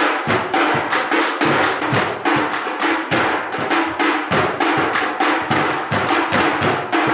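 Dance music driven by rapid, even percussion strokes, several a second, over steady pitched tones.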